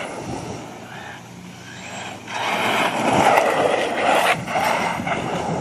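Hurricane XTE electric RC truggy running on 5S, driving hard with its tyres scrubbing over the ground. The sound gets louder a little over two seconds in as the truck comes closer and powers through a turn.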